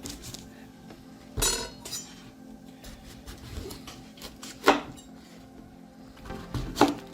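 Kitchen utensils and dishes clattering: a few sharp knocks and clinks, such as a knife set against a bowl or board, with the loudest a little past the middle.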